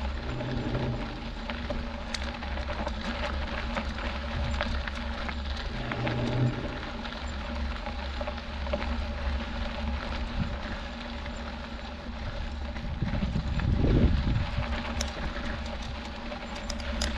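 Mountain bike climbing a gravel dirt road: tyres rolling and crunching over small stones, with wind rumbling on the body-mounted camera's microphone. The rumble swells louder for a moment near the end.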